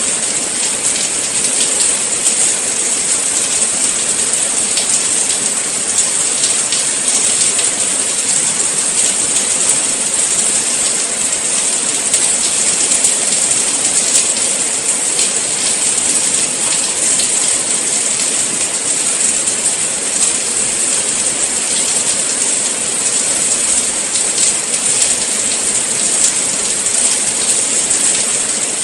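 Steady rain falling: a dense, even hiss with a fine patter of countless drops.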